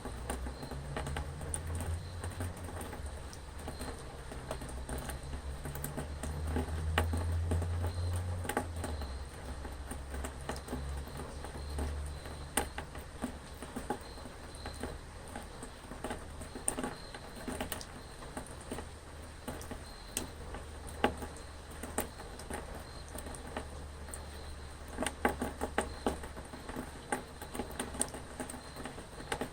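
Rain pattering, with many sharp individual drops ticking irregularly over a steady wash of noise. A low rumble runs underneath, swelling twice in the first half.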